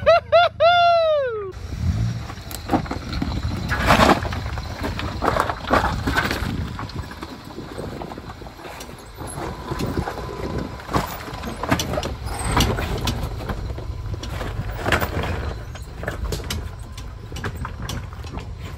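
Lifted Honda Civic's engine running at low revs as the car crawls over rocks, with irregular knocks and crunches along the way.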